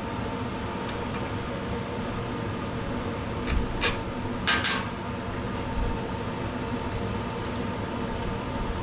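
Steady background hum, with a few short metallic clicks and clinks as the mower's drive-cable parts are handled, bunched about three and a half to five seconds in.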